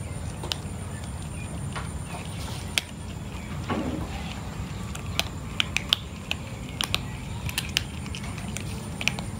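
A cat crunching dry kibble: irregular sharp crunches, coming thick and fast in the second half, over a steady low background rumble.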